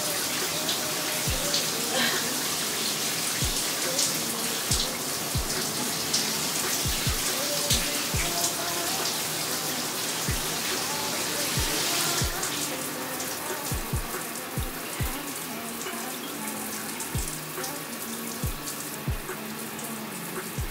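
Shower spray running onto a shower floor, a steady rushing hiss, under background music with a deep bass beat.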